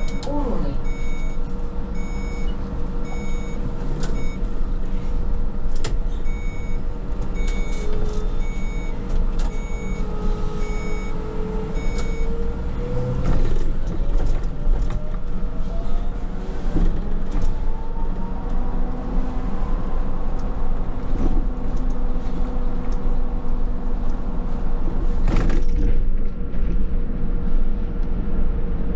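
Škoda 27Tr trolleybus in motion, heard from the cab, with a steady electrical hum. For the first twelve seconds a high electronic warning beep sounds about once a second. Then the traction motor's whine rises steadily in pitch as the trolleybus accelerates, and a single sharp knock comes near the end.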